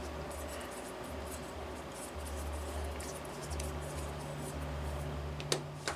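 Faint handling of oiled metal glow-engine parts: small clicks and light taps as the parts are turned over in the hands, with a slightly sharper click near the end, over a low steady hum.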